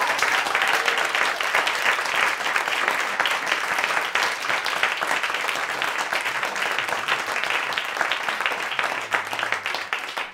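Audience applauding at the end of a live song: many hands clapping at once, fading slightly near the end.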